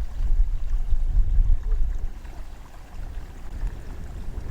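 Wind buffeting the microphone outdoors: a gusty low rumble that swells and eases, strongest in the first half and dying down after about two seconds in.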